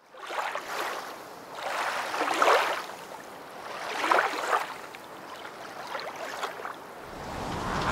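Small waves breaking and washing up a sandy beach, the surf swelling and falling back every couple of seconds. Near the end a louder, steadier rush of surf with wind rumbling on the microphone takes over.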